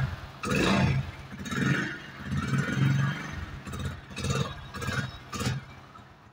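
Hero Splendor's single-cylinder four-stroke engine running through its stock silencer, blipped several times so that the exhaust note rises and falls, then fading toward the end.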